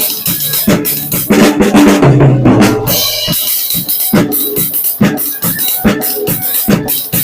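Loud music led by a drum kit: a steady beat of kick and snare strikes with a bass line under it.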